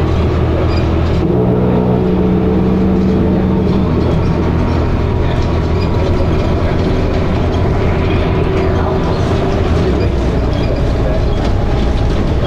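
A Dennis Arrow bus's engine and ZF automatic gearbox heard from inside the bus, running steadily under way; the engine note changes about a second in.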